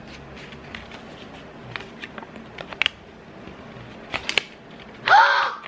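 Folded paper slip being unfolded by hand: light crinkling and crackling, with sharper crackles in the middle and about four seconds in. A short vocal exclamation near the end.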